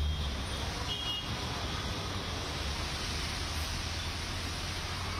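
Road traffic driving through floodwater on a waterlogged street: a low engine rumble, strongest in the first second, over a steady wash of tyre and water noise.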